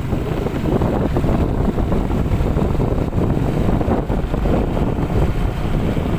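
Strong gusting wind buffeting the microphone: a loud, continuous, rumbling roar that churns without letting up.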